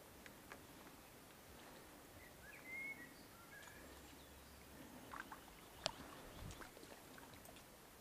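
Near silence: faint outdoor ambience with a brief chirp about three seconds in and a few soft clicks and ticks, the sharpest about six seconds in.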